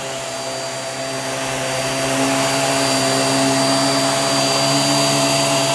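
Hoover React QuickLift upright vacuum cleaner running steadily on carpet, its motor a steady hum with a high whine and airflow hiss. It grows a little louder over the first couple of seconds, then holds level.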